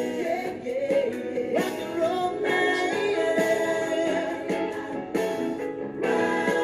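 A song playing: a sung melody over guitar and band.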